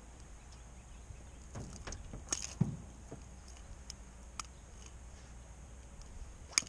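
Scattered light clicks and knocks of fishing gear being handled in a small aluminum boat, over a low steady hum; the sharpest clicks come about two and a half seconds in and near the end.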